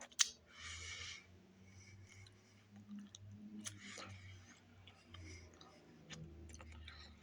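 Faint chewing and mouth sounds of someone eating a Subway sandwich, with one sharp click just after the start and scattered soft clicks.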